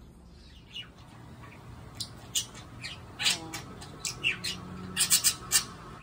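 Budgerigar giving a run of short, sharp chirps and squawks, sparse at first and coming thicker and louder near the end.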